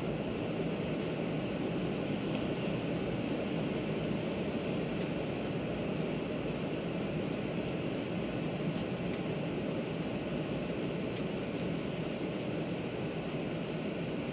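JR West 500 series Shinkansen running at speed, heard from inside the passenger cabin: a steady rumble and rush from the wheels and the air, with a few faint ticks in the middle.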